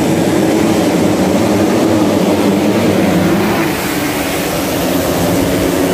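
A pack of dirt-bike engines revving hard together at a race start, the bikes pulling away from the line; the level eases slightly a little under four seconds in.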